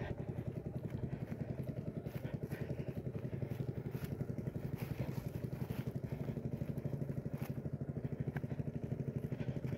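An engine running steadily, with a fast, even beat.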